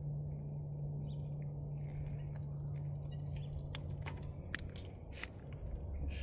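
Light clicks and ticks of hand-tool work on small electrical wires, plausibly stripping insulation off the UV lamp leads, coming mostly in the second half over a steady low hum.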